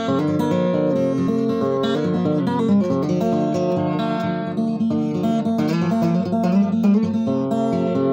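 Acoustic guitar in open G tuning, fingerpicked in a free improvisation, with notes and chords ringing into one another without a break.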